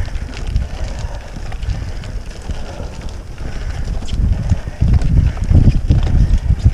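Road bike on Panaracer GravelKing tyres rolling over a rough, stony dirt track: a deep tyre rumble with scattered clicks and rattles from the stones and the bike, and wind buffeting the microphone. The rumble gets louder in the last couple of seconds.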